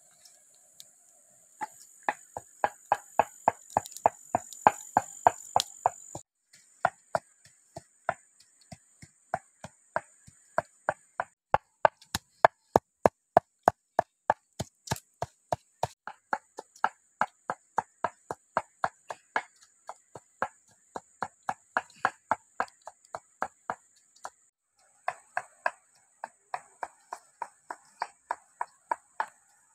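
Stone pestle pounding red chilies and salt in a stone mortar: sharp strikes about three a second, pausing briefly twice. A steady high insect buzz runs behind.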